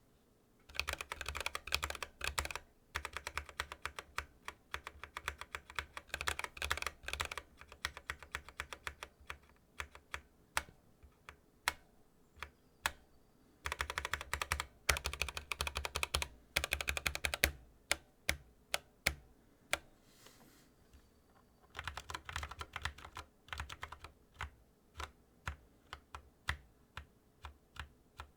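Typing on a Skylong GK96 mechanical keyboard with stock switches and PBT keycaps: several fast runs of keystrokes broken by pauses and slower single key presses.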